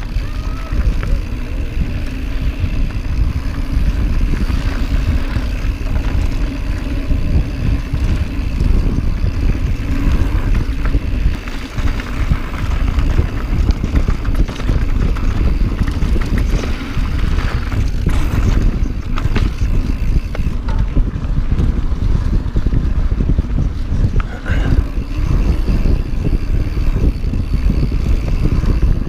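Mountain bike descending fast on a steep dirt trail: a loud, steady rumble of wind on the microphone mixed with the noise of the bike rolling over rough ground.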